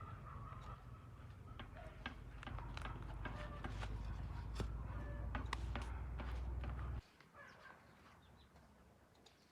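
A run of light clicks and knocks from hands-on outdoor work, over a low rumble of wind on the microphone. The rumble cuts off suddenly about seven seconds in, leaving only faint scattered sounds.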